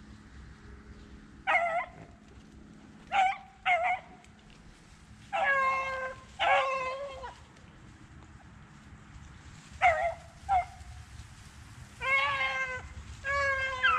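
Beagles baying on a rabbit's trail, a mix of short chop barks and longer drawn-out bawls in irregular bursts, the sign of the pack running the rabbit.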